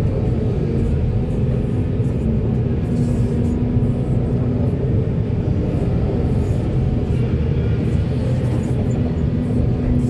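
Heavy construction machinery running: a steady, unbroken diesel engine rumble.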